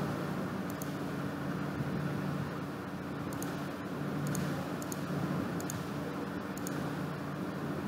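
Steady low background hum, with a handful of faint, sharp clicks scattered through it: mouse clicks as buttons in an on-screen app menu are pressed.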